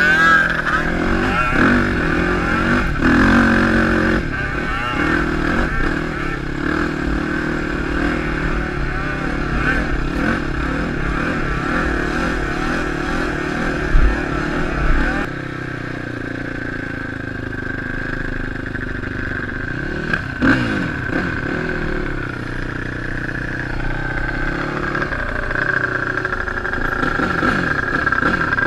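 Sport ATV engine running and revving up and down as the quad is ridden, heard from a helmet-mounted camera, with a couple of sharp knocks in the middle.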